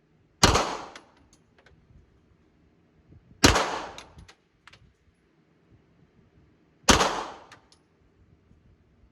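Three single gunshots about three seconds apart, each with a short echoing tail, and faint small clicks after the shots.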